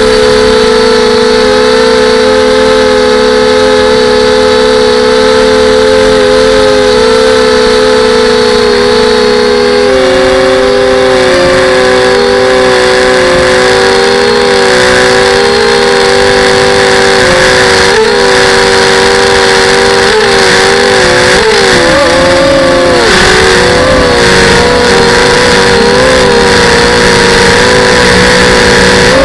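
FPV quadcopter motors and propellers whining. Several close pitches around a steady hum wobble up and down as the throttle changes, shifting most around twenty-odd seconds in.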